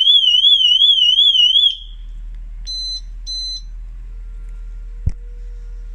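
Remote-controlled alarm siren on a Kawasaki Z750R motorcycle, triggered from its key fob: a loud warbling tone that rises and falls about four times a second for under two seconds, then two short beeps. A single click comes about five seconds in.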